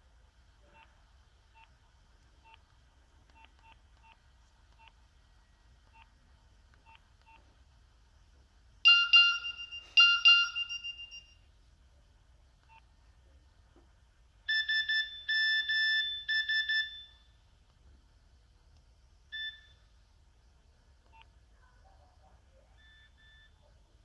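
Nokia 6070 mobile phone previewing its message-alert tones one after another: faint keypad ticks while scrolling, then a loud two-strike chime that rings out, a fast run of two-pitch beeps, a single short beep, and two faint short beeps near the end.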